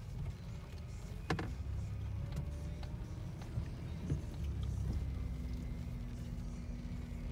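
Low vehicle rumble, like a car running heard from inside, with a sharp click a little over a second in and a faint steady hum in the last couple of seconds.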